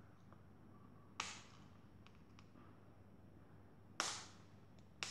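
Yellow slime being pulled and squeezed between the hands, giving three sharp pops: one about a second in and two more near the end.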